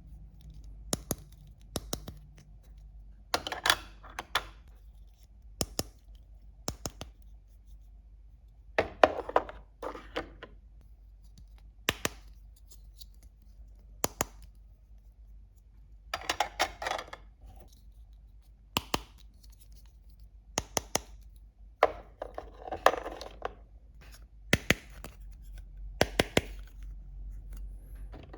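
Small hard plastic toy pieces being handled and set down: irregular sharp clicks and taps, with a few short rustling or scraping bursts.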